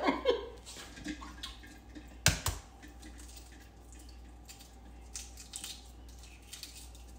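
Hard-boiled eggs being handled and peeled in a bowl of cold water in the sink: faint shell clicks, drips and small splashes. One louder knock comes a little over two seconds in.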